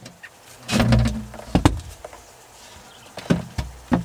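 A wooden access panel being handled and pulled loose by hand: a low scraping rumble about a second in, then several sharp knocks and clicks.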